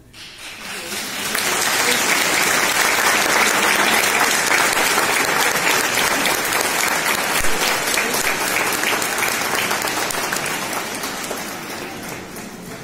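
A church congregation applauding. The clapping builds up over the first second or two, holds steady, then slowly thins out near the end.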